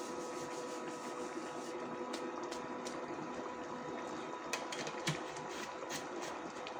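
Plug-in electric cooker running with a steady hum under a pot of dal lobia (lentil and black-eyed pea curry) simmering, with scattered soft pops from the bubbling sauce.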